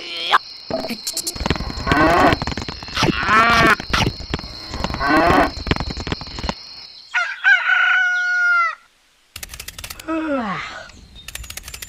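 Cow mooing three times, about a second and a half apart, over a steady high whine and fine clicking. After about seven seconds the moos stop and a higher, wavering animal call follows, then a short falling call.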